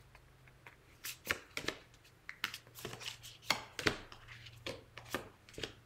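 Cards drawn off a deck and laid down one after another on a table: a run of irregular sharp light taps and card snaps.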